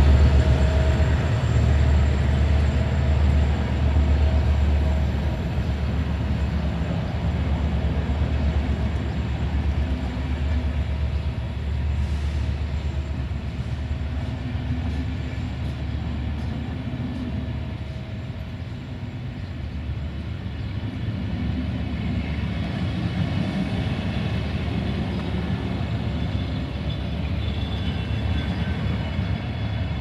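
Passenger railway coaches rolling along the track: a steady low rumble of wheels on rails, with faint high-pitched tones joining in the last third.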